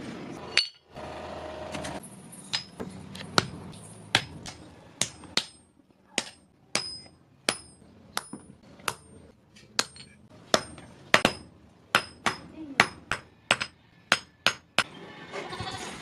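Hand hammer striking hot steel on an anvil, forging a mason's trowel: a steady run of blows, roughly one to two a second, each with a short bright metallic ring.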